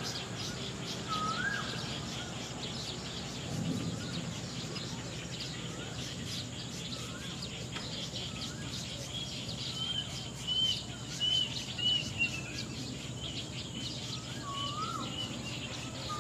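Birds calling: one repeats a rising whistled note every couple of seconds, and another gives a run of short, higher calls about two-thirds of the way through, the loudest sounds here. Many faint chirps sit over a steady low hum.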